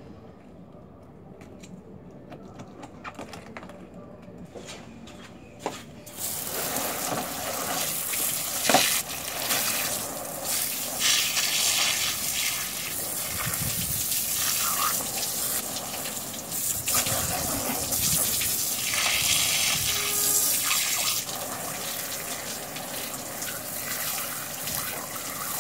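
Garden hose spray nozzle jetting water onto a gutted fish and a plastic cooler lid, a loud hiss and splash that starts about six seconds in and rises and falls as the jet moves over the fish. Before it, faint clicks and scrapes of knife work on the fish.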